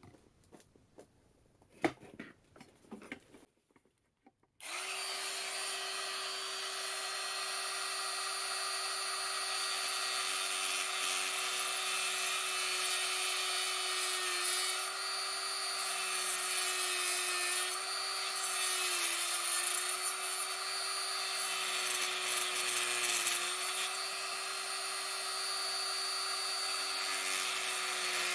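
A few faint handling clicks, then a small high-speed power tool starts suddenly and runs steadily, trimming a cast moulding piece to shape. Its pitch dips briefly several times as it is pressed into the work.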